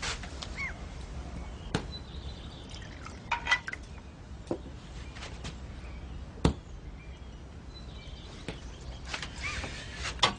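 Scattered clinks and knocks of an aluminium kettle and its lid being handled on a kitchen stove, the sharpest knock about six and a half seconds in, over a low steady background hum.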